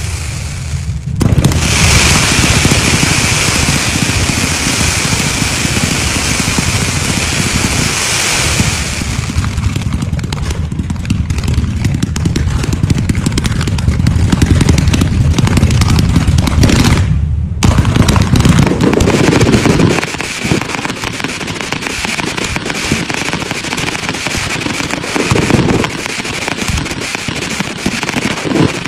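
A fireworks barrage of rapid-fire bangs and dense crackling from multi-shot ground batteries and aerial bursts. A high hiss rides over the bangs for the first several seconds and returns more faintly in the last part, with a brief break a little past halfway.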